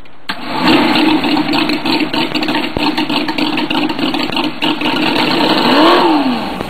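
Car engine running steadily, then revving up and back down once about six seconds in.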